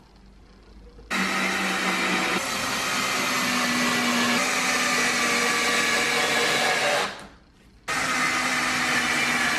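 Electric drill driving screws into pine crossbars: the motor runs for about six seconds, its pitch shifting a couple of times as the screw bites, stops briefly, then runs again for about two seconds.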